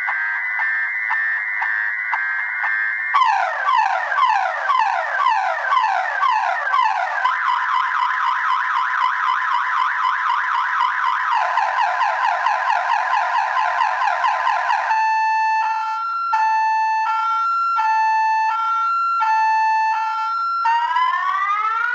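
Viper car alarm siren in full panic mode, cycling through its tones: a rapid pulsing tone, then repeated falling sweeps, a fast warble, a high-low two-tone alternation, and rising sweeps near the end.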